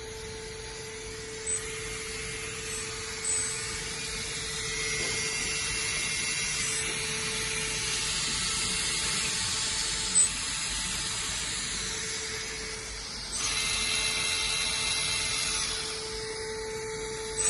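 Small electric motors and gear drives of a 1/14-scale LESU RC bulldozer running with a high whine that rises and falls in level, loudest for a few seconds near the end, with a few short clicks.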